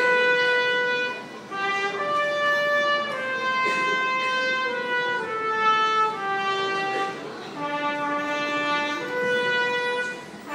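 Instrumental music: a slow melody of held, brass-like notes, each lasting about a second, as a hymn's introduction.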